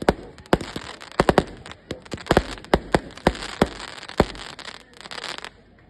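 Fireworks going off: an irregular run of sharp bangs, a couple close together at a time, ending in a short burst of crackling that stops abruptly about five and a half seconds in.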